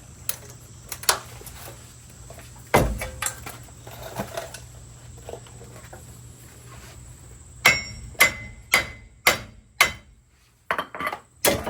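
Hammer striking the front wheel hub assembly of a GMC Yukon to knock it loose from the steering knuckle, metal on metal. A few scattered knocks come first, then a run of about six sharp ringing strikes about half a second apart, then a few more.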